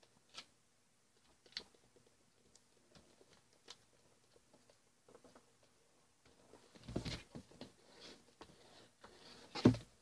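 Faint rustling and crinkling of a sheet of origami paper being folded and creased by hand on a tabletop, with a few light ticks early on and busier paper handling from about seven seconds in. A sharp thump comes near the end.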